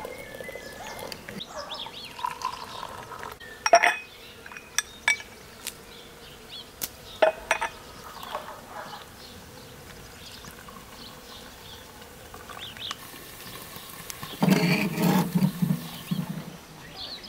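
Porcelain teapot and cut-glass tea glasses clinking on saucers as tea is poured, a few sharp chinks standing out. A low drawn-out call of about two seconds comes near the end.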